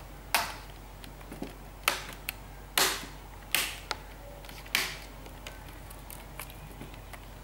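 Replacement keyboard of an Asus Eee PC Seashell netbook being pressed down along its edges, giving about five sharp plastic clicks roughly a second apart, with a few fainter ticks between: the keyboard's tabs snapping into their latches, the sign that it is locked in place.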